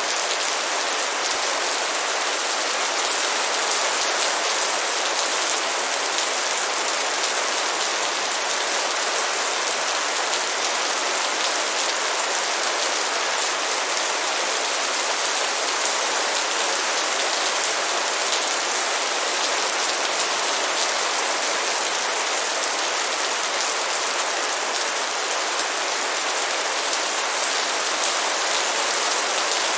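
Steady rain falling on a surface: an even, unbroken hiss with fine scattered drop ticks throughout.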